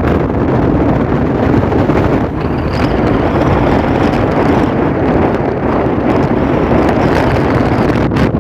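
Strong wind buffeting the microphone, with the steady low rumble of the tugboat's engines underneath.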